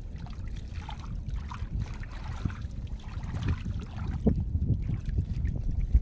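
Shallow muddy water splashing and sloshing as hands and a seine net are swept through it, with scattered small splashes over a steady low rumble.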